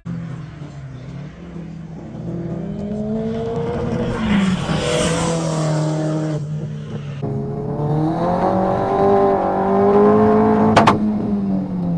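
Turbocharged 1.8-litre four-cylinder engine of a Volkswagen New Beetle race car, revving up and down as it is driven hard around a racetrack. It is heard first from trackside, then from inside the cabin after a cut, with a sharp click near the end.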